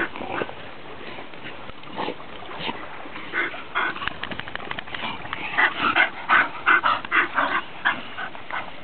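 Dogs at play making a quick run of short yips and whines, sparse at first and coming thick and fast from about three seconds in.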